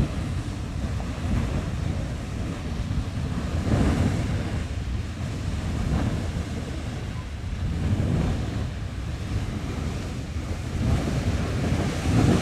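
Beehive Geyser erupting: the steady rushing hiss of its water column and falling spray, swelling and easing in surges a few seconds apart, with wind buffeting the microphone.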